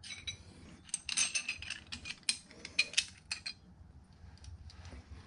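Ratchet wrench clicking in short runs, with sharp metal clinks, as bolts are worked on a horizontal milling machine's feed unit. The clicks are loudest in the first few seconds and fainter and sparser near the end.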